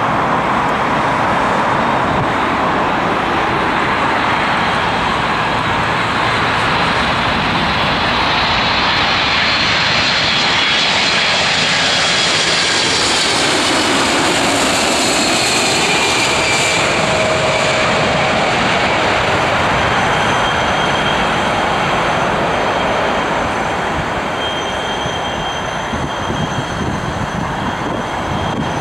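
Boeing 747-400 airliner's four turbofan engines on final approach, a loud, steady jet noise. A high whine slides down in pitch as the jet passes low overhead about halfway through. The noise eases somewhat in the last few seconds as the aircraft lands.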